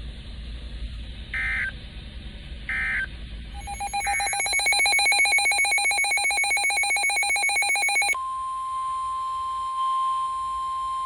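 NOAA Weather Radio alert signals. Two short buzzy data bursts of the kind that mark the end of a message come first, then a rapidly pulsing electronic alarm for about four seconds. About eight seconds in, the steady 1050 Hz warning alert tone starts and holds, heralding the next warning.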